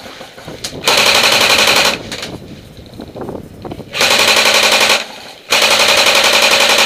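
Airsoft electric gun firing full-auto, three bursts of about a second each with a rapid mechanical clatter over the gearbox's steady whine; the last burst is the longest.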